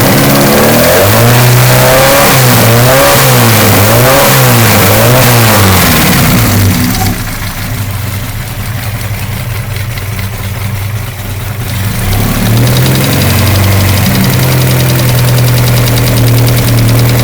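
Volkswagen GTI engine revved in about four quick blips, then running lower and quieter for several seconds before settling into a steady run again, with the knocking sound the owner is recording.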